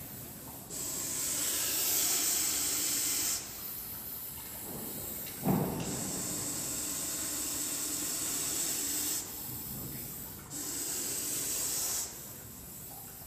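Russell's viper hissing defensively, a series of long, loud hisses one after another with short pauses between, from an angry snake that is cornered. A single sharp knock about five and a half seconds in.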